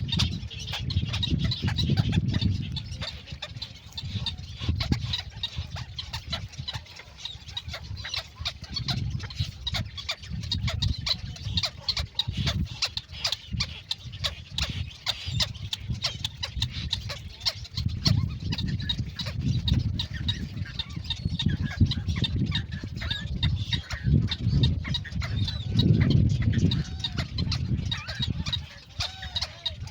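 Birds clucking and calling, with short calls that are clearer near the end, over a low rumble that swells and fades every few seconds.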